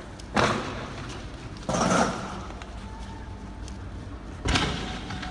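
Three loud bangs, the second drawn out a little longer than the others, from riot police firing tear gas rounds.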